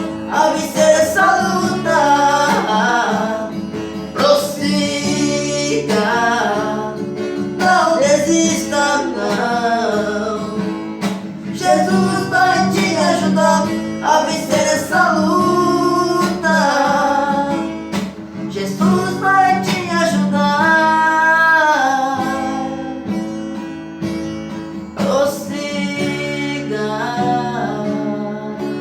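Male singing of a gospel hymn over acoustic guitar accompaniment, long sustained sung notes over steady guitar chords.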